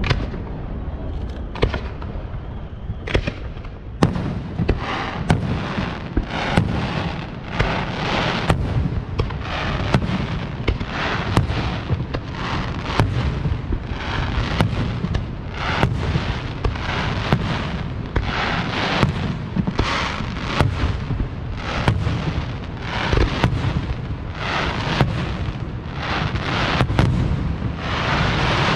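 Aerial fireworks display: shells bursting with sharp bangs, a few spaced out at first and then coming every half second to a second from about four seconds in, with hissing and crackling between the bangs.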